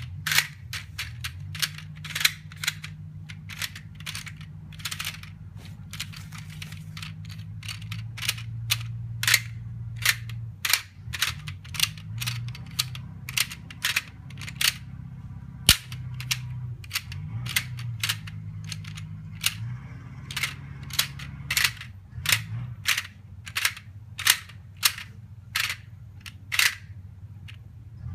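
Small plastic car pieces of a traffic-jam sliding-block puzzle clicking and clacking against each other and the plastic tray as they are picked up, slid and set down: irregular sharp clicks, one to three a second, over a steady low hum.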